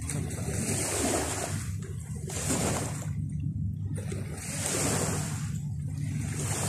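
Sea surf: small waves breaking and washing up the shore one after another, about every two seconds, over a steady low rumble.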